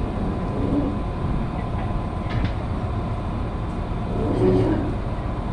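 Steady low machinery rumble with a faint constant hum, and muffled voices briefly heard about a second in and again near the end.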